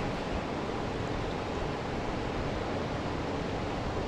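Steady rushing of river rapids, with a low wind rumble on the microphone.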